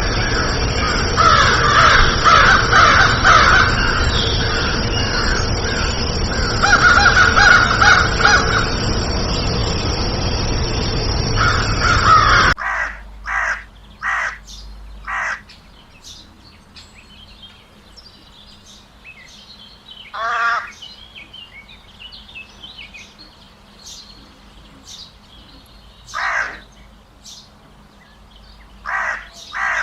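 Crows cawing. For the first twelve or so seconds many crows caw at once over a loud, dense background noise. Then the sound cuts abruptly to a quieter recording of single harsh caws, spaced a few seconds apart.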